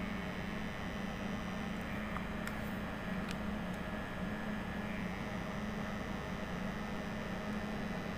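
Steady low electrical mains hum from the energized DOL starter panel, typical of an AC contactor coil pulled in, with a few faint light clicks about two to four seconds in.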